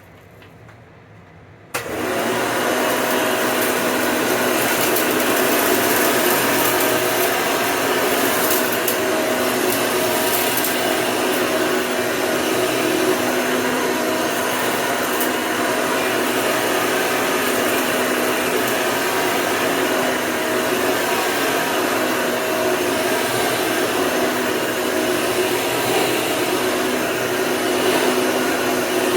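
Hoover upright vacuum cleaner switched on about two seconds in, its motor starting suddenly and then running steadily with a constant whine.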